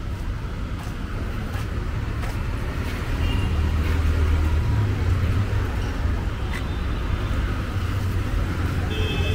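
City street traffic: a steady low rumble of vehicle engines, growing louder for a few seconds as a vehicle passes about three seconds in.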